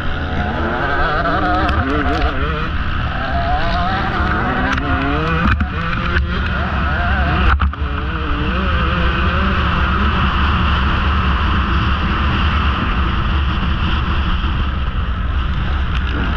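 A KTM XCW 150 two-stroke dirt bike engine ridden hard: the revs swing up and down through the first half, then hold steadier on the throttle from about halfway. A steady rush of wind noise runs under it, with a few sharp knocks in the middle.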